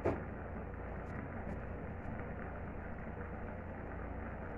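Steady rumbling hiss of a lit gas stove burner under a stainless steel pot of simmering pechay, with a few faint ticks. A short knock sounds just after the start.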